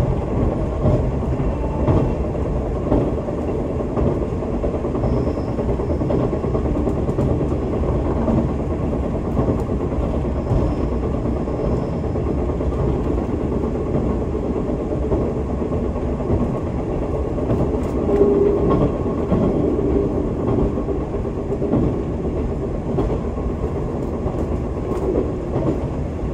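KiHa 185 series diesel train under way: a steady rumble of the diesel engine and the wheels running on the rails.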